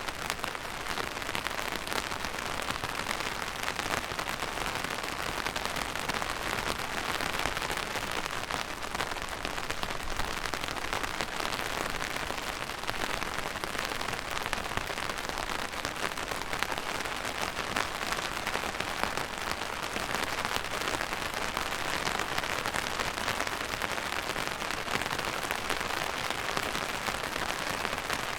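Steady rain falling on a surface, a dense even hiss with many fine drop patters.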